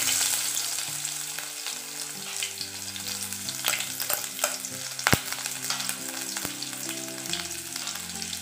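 Chopped shallots sizzling in hot oil with popped mustard seeds in a kadai. The sizzle is loudest as the onion goes in, then settles to a steady frying hiss broken by a few sharp pops, the loudest about five seconds in.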